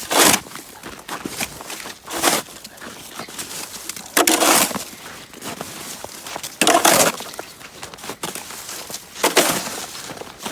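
Snow shovel scraping and breaking through heavy, ice-crusted snow, five strokes about every two and a half seconds: the crust is freezing rain that has frozen over the snow.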